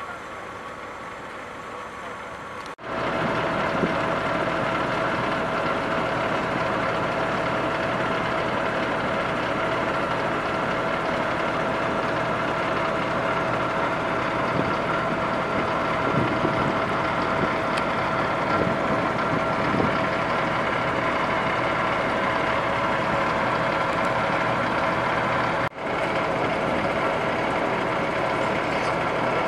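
Truck engine running steadily at idle, loud and even. A quieter stretch comes first, then the engine sound cuts in about three seconds in, with a brief break near the end.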